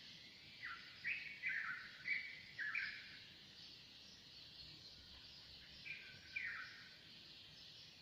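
Early-morning chorus of many birds as a steady high chatter. A nearer bird calls a quick run of about five short, falling whistled notes in the first three seconds, and two more around six seconds in.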